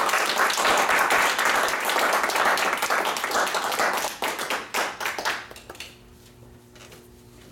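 Small audience applauding with many overlapping claps, dying away about three-quarters of the way through. A faint steady hum is left after it.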